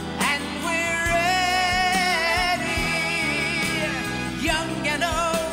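Music from a Jewish pop song: a long held melody note with a wavering, vibrato-like line, over accompaniment.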